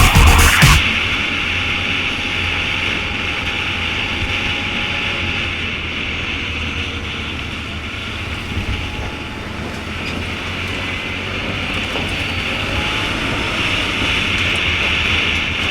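A vehicle on the move, heard as a steady low rumble with a rattling, rushing noise over it. Electronic music cuts off under a second in.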